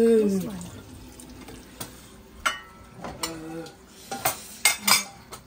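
Dishes clattering: sharp knocks and clicks as plates and bowls are set into a plastic dish drying rack, the loudest pair near the end, over running water at the sink.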